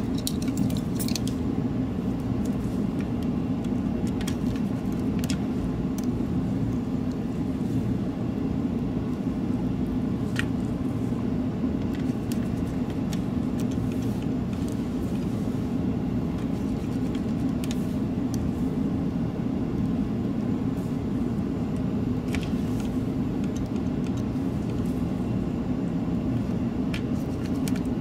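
Steady low machine hum, with a few faint, scattered clicks of small parts being handled inside the opened mouse shell.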